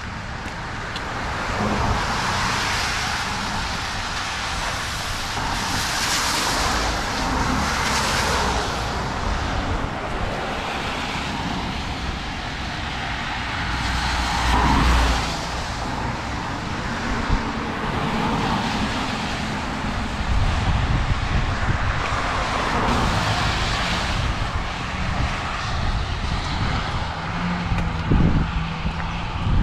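Several cars passing one after another on a wet road, each swelling and fading as it goes by, over a low rumble of wind on the microphone.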